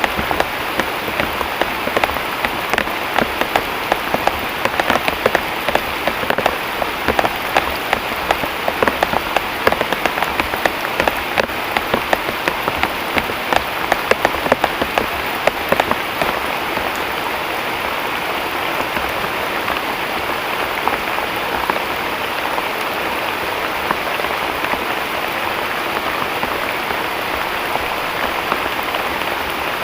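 Heavy tropical rain pouring down steadily. Through the first half many sharp drops pelt in close; after that it settles into an even hiss.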